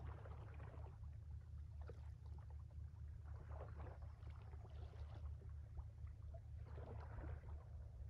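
Small waves of a calm sea lapping softly on the shore, swelling and fading every couple of seconds over a steady low drone.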